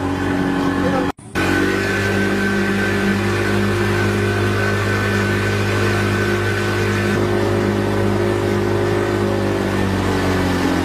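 A boat engine running at a steady speed. It cuts out for a moment about a second in, then carries on unchanged.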